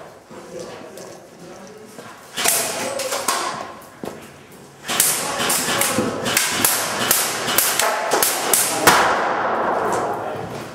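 Airsoft guns firing rapid bursts of sharp cracks: one short burst about two seconds in, then a longer run of fire from about five seconds in.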